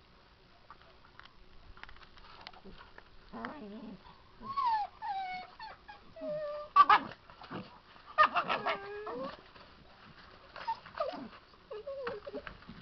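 Puppy whimpering and yelping in rough play with an adult dog. A string of falling whines begins about three seconds in, the loudest yelp comes near the middle, and shorter yips follow toward the end.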